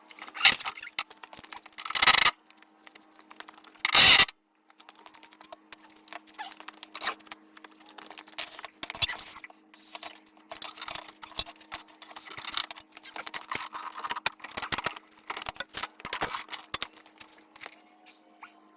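Metal hand tools and hardware clinking and scraping, irregular and unrhythmic, with three loud knocks in the first four seconds; a steady low hum underneath.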